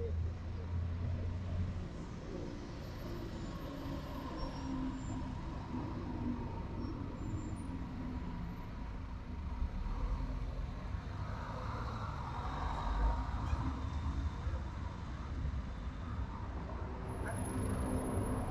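City street ambience dominated by road traffic: a steady low rumble of passing cars and buses, with faint voices mixed in.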